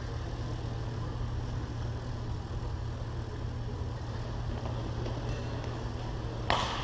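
Steady low hum of a large indoor sports hall. Near the end a single sharp crack rings out in the hall: a racket striking a shuttlecock as play restarts.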